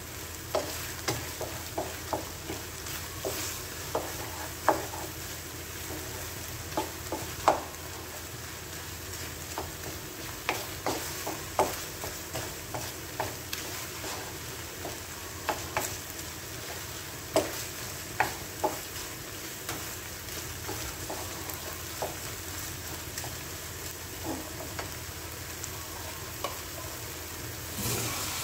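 A wooden spatula stirs shrimp and vegetables in a nonstick pan, knocking and scraping against the pan at irregular intervals over a steady sizzle of frying. The knocks thin out near the end.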